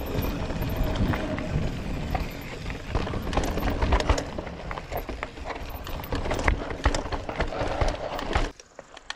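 2021 Intense 951 mountain bike riding fast down a dirt and rock trail: tyres crunching over dirt and stones with a stream of rattling knocks and clacks from the bike over rocks, under rushing noise. It drops away suddenly about eight and a half seconds in.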